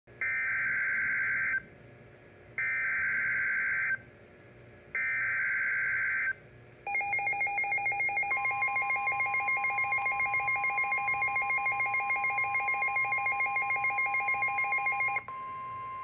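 Midland NOAA weather alert radio receiving an Emergency Alert System severe thunderstorm warning: three short bursts of warbling digital header data, then a rapid pulsing alarm beep, about five a second, over the steady NOAA warning tone. The pulsing beep cuts off near the end while the steady tone carries on.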